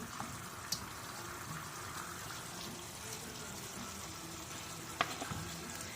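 Food cooking in a pot on a stovetop: a steady low hiss, with a faint click about a second in and another near five seconds.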